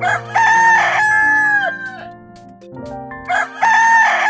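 Rooster crowing twice. The first crow starts at once and ends in a falling note, and the second begins about three seconds in. Background music plays underneath.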